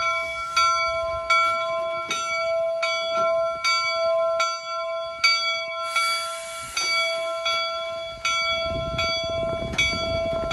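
Steam locomotive bell on the replica Union Pacific No. 119 ringing steadily, about one and a half strikes a second, as the 4-4-0 pulls away. A brief hiss comes about six seconds in, and a low rumble builds near the end.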